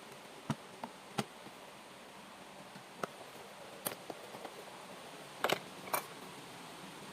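Hot oil spitting in a frying pan: scattered sharp pops at irregular intervals over a steady hiss, with a close pair of louder pops about five and a half seconds in and another just after.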